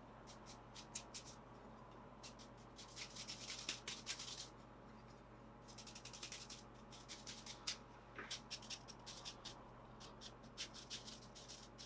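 A brush scrubbing dirt off laptop parts in runs of quick, faint scratchy strokes, with a short pause near the middle.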